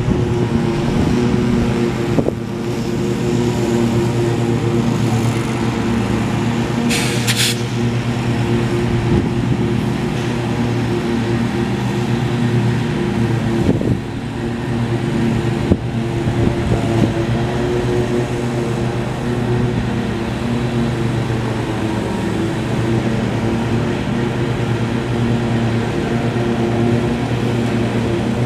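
GE C44-9W locomotive's V16 diesel engine running steadily while the train stands airing up its brakes. A brief hiss cuts in about seven seconds in.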